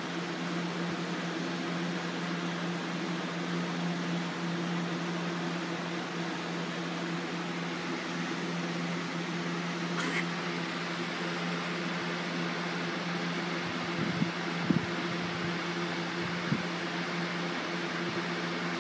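Steady hum and even hiss of a running electric fan, with a sharp click about ten seconds in and a few soft low bumps near the end.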